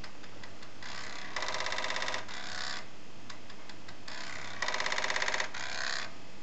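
Commodore 1541 floppy disk drive trying to load: twice, a whirring burst with a rapid, even rattle of about twenty strokes a second in the middle, the read head knocking as the load fails with a file-not-found error.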